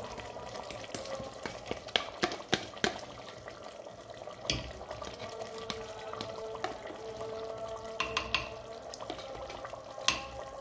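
Chicken and spice masala cooking in ghee in a clay pot with a steady low sizzle, with scattered sharp clicks and scrapes of a spoon against the pot as yogurt is stirred in.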